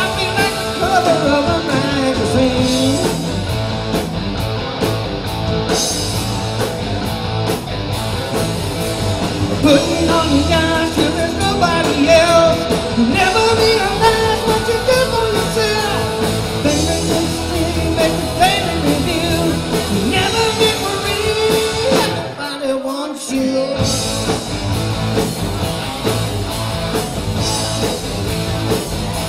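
Live rock and roll band playing a song with a lead singer. The bass drops out for about a second about three-quarters of the way through, then the full band comes back.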